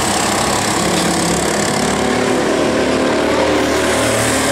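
Several go-kart engines running together as karts race on the track, their overlapping notes shifting a little in pitch.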